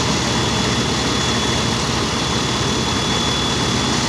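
Fire engine's diesel engine running steadily while driving its water pump to feed charged hoses, with a thin steady high whine over it.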